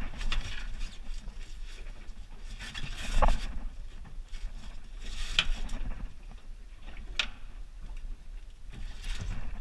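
Handling noise as a smoothhound is unhooked with a metal disgorger on a boat deck: a few scattered knocks and scuffs, the loudest about three seconds in, over wind rumbling on the microphone.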